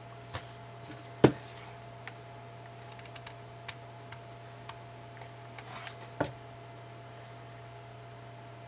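Scattered small clicks and taps from hands working ribbon and handling a hot glue gun, the sharpest about a second in and another about six seconds in, over a steady low hum.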